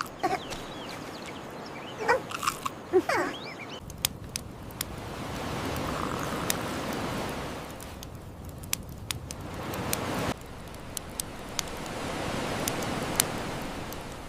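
Sea waves washing in and drawing back, the rush swelling and fading every few seconds. A few short squeaky chirps and clicks come in the first few seconds.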